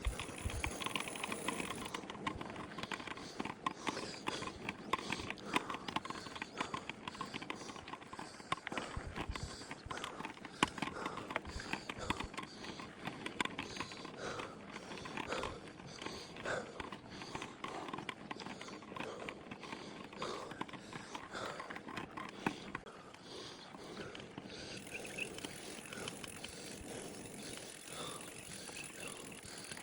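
Mountain bike clattering over rough, rocky ground, a dense run of small rattles and clicks.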